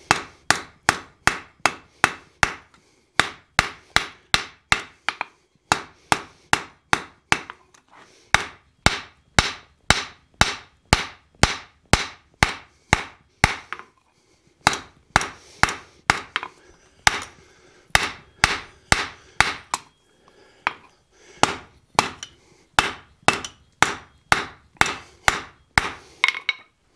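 Hand hammer striking a red-hot railroad spike on a steel anvil, about three ringing blows a second in runs broken by short pauses. This is drawing out the spike's end into a taper.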